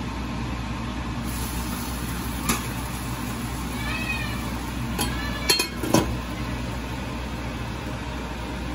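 A domestic cat meows once, about four seconds in, over a steady low hum. A few sharp metal clinks from the steel cooking pot and its lid come between five and six seconds, and these are the loudest sounds.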